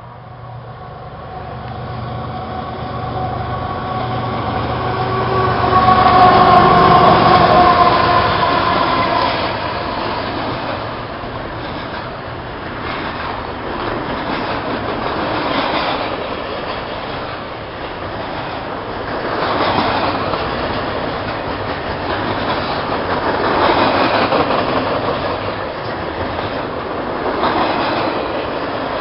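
Freight train passing close by: a steady diesel locomotive drone builds and is loudest about six to eight seconds in. Then double-stack container cars roll past with wheels clattering over the rail joints, the noise swelling and easing every few seconds.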